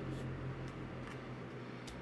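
A few small, sharp plastic clicks, about four in two seconds, from keyboard stabilizer parts being handled and fitted, over a low steady hum.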